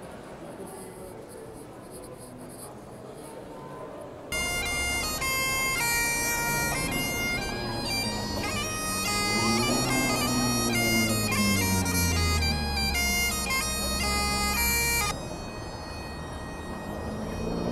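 Highland bagpipes played by a street busker: a melody of changing notes over steady drones. It starts suddenly about four seconds in and cuts off abruptly about eleven seconds later.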